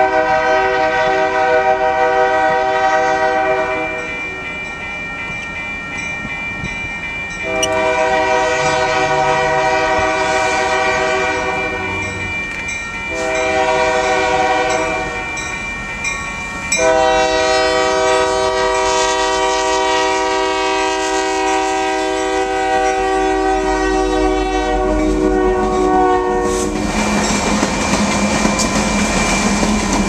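A Union Pacific diesel freight locomotive sounds its air horn in a series of steady blasts as it approaches. One blast ends about four seconds in, two more of a few seconds each follow, and a last long blast is held for about ten seconds. Near the end the horn stops and the locomotive passes close, its engine and wheels running loud.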